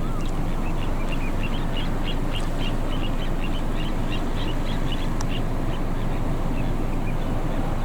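Little ringed plovers calling: a long run of short, high piping notes, about four a second, thinning out near the end, over a steady low rumble.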